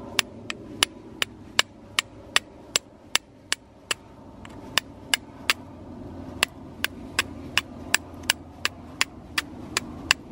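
Flint and steel being struck again and again, sharp clicks about two or three a second with a couple of brief pauses, to throw a spark onto char cloth laid on the flint's edge.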